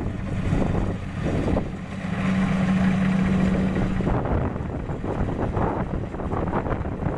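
Kubota DC-70 Plus combine harvester's diesel engine running steadily while harvesting, its hum growing stronger for a couple of seconds near the middle, with a rough, gusty noise over it.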